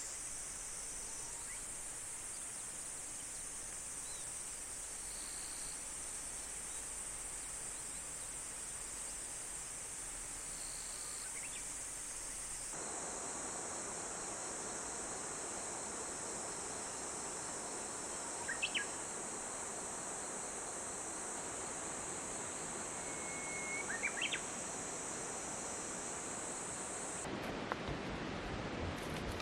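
Outdoor nature ambience: insects droning steadily at a high pitch, with a few short bird chirps about a third and two-thirds of the way through.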